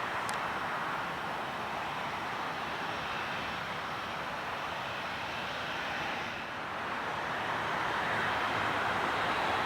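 Jet engine noise from a Boeing 737-700 airliner's CFM56 turbofans, a steady rushing hiss that dips slightly about six seconds in and then grows louder toward the end.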